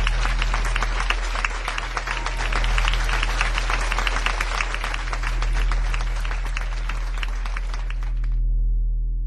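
Audience applause, a dense patter of many hands clapping that cuts off abruptly about eight seconds in, over a low steady drone.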